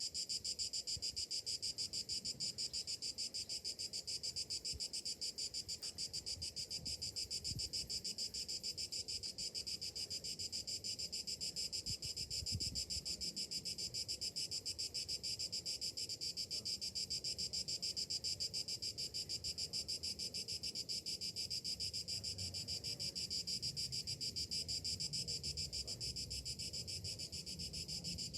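Summer cicadas buzzing in chorus: a steady, high-pitched, rapidly pulsing drone.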